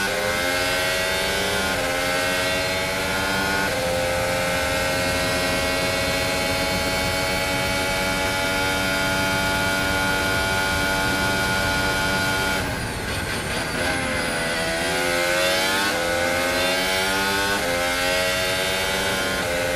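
Onboard sound of a Mercedes Formula 1 car's turbocharged V6 hybrid engine at full throttle on a qualifying lap. It climbs through the gears with quick upshifts about two and four seconds in, then holds high revs on the straight. About two-thirds of the way through the revs fall in steps as the car brakes and downshifts into a corner, then rise again as it accelerates out.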